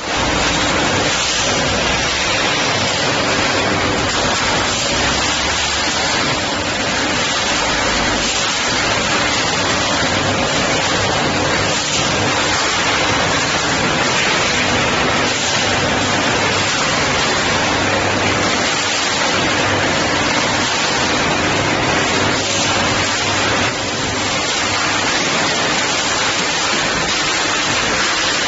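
Steady, loud hiss of factory background noise, even throughout, with a faint low hum coming and going underneath.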